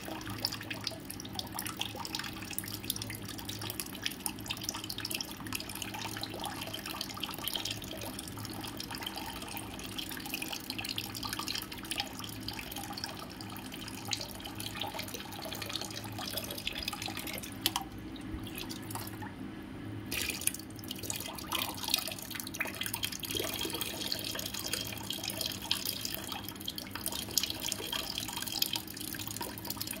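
Running water trickling and dripping, a nature water-sound track, over a steady low hum.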